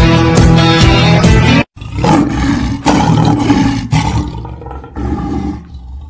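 A loud musical jingle with a beat cuts off abruptly, then a lion roars for about four seconds and the roar trails away.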